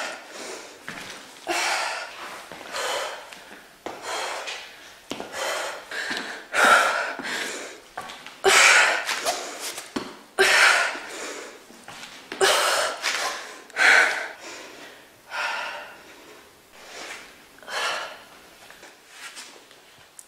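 A woman breathing hard from exertion, with a sharp, forceful exhale every second or two.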